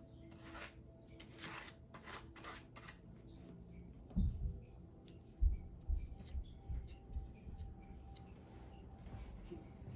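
Crumpled paper of a papier-mâché volcano rustling as a paintbrush strokes over it and the paper is handled, with a few dull thumps from about four seconds in.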